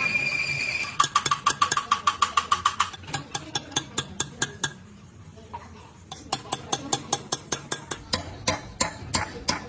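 Rapid sharp metallic taps with a slight ring, about seven a second, that thin out and pause briefly about five seconds in, then start again.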